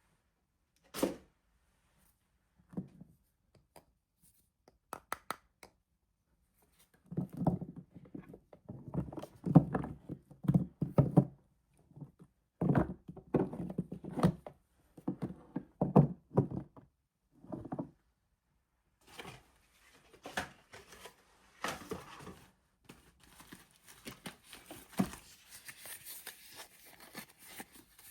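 Soap bars being handled and unwrapped close up: a few light clicks, then a long run of dull thuds and knocks, then the crinkling and tearing of the wrapper through the last third.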